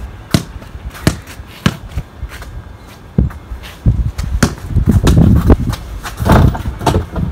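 A basketball dribbled on hard ground, a short sharp bounce about every half second, then irregular thumps as a player drives and jumps at the hoop. The second half is the loudest, with low rumbling thumps.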